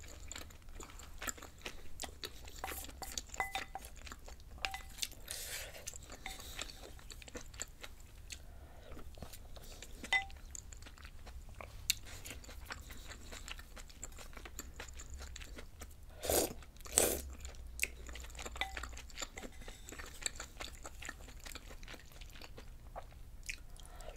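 Close-miked chewing and small wet mouth clicks of a person eating dumpling rice cake soup, with two louder noises about two-thirds of the way through.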